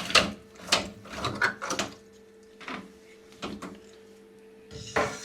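Plastic clicks, scrapes and knocks as the drain pump filter of a Bosch washing machine is unscrewed and handled. There is a quick run of them in the first two seconds, then a few single knocks.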